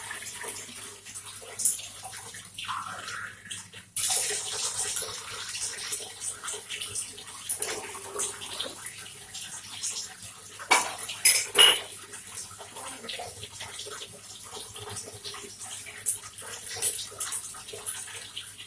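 Water running and splashing from a tap, with a few clinks and knocks of a glass and pots being handled, loudest in a short cluster about eleven seconds in.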